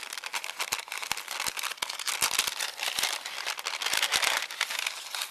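A small bag of die-cut paper craft pieces being opened and handled, its packaging crinkling and rustling with many sharp crackles, loudest in the second half and stopping near the end.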